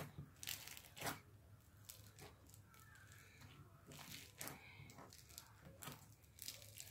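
Day-old slime being squished and pulled by hand: faint, scattered crackles and small sticky pops.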